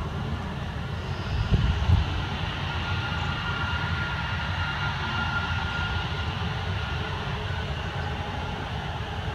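Turbofan engines of a four-engine C-135-family military jet taxiing, a steady rushing noise over a low rumble, with a thin high whine that is strongest about halfway through.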